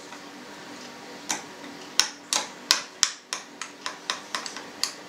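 Metal spoon clinking against a small glass bowl while stirring a thick mayonnaise sauce: sharp, irregular clicks, a single one about a second in, then three to four a second.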